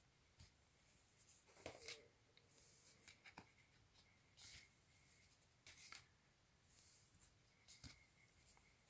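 Faint handling of cardboard LP sleeves: covers being turned over and slid off one another, giving soft scrapes and light taps several times.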